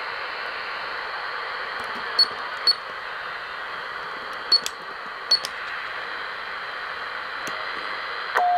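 Albrecht AE 485S 10/11-metre transceiver's speaker hissing with receiver noise on USB with no station heard, cut by four short high beeps as its front-panel keys are pressed to change frequency. Near the end a louder steady tone starts.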